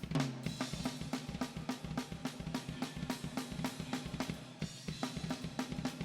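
Live band playing, led by a drum kit: a fast, steady beat of bass drum, snare and cymbals over low sustained bass or guitar notes.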